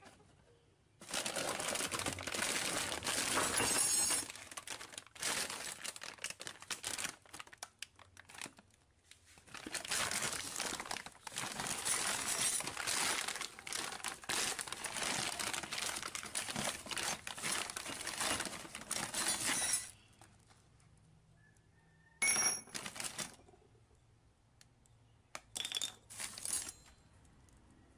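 Plastic bag crinkling and rustling as the rusty metal hardware inside it is rummaged through, in a long stretch lasting about twenty seconds, then quieter with two short bursts near the end.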